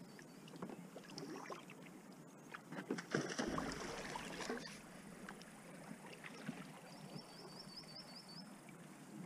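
Kayak paddle strokes splashing and dripping in the creek, with water lapping against the inflatable packraft's hull. The splashing grows louder about three seconds in, for a second or so.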